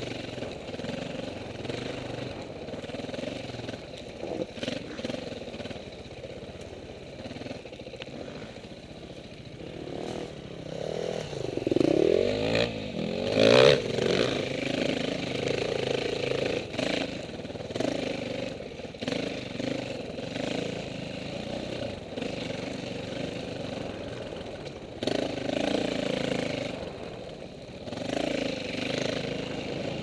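Dirt bike engine running at low revs. About eleven seconds in, the pitch dips and climbs again in the loudest stretch, then settles back to a steady low run with a few smaller swells later.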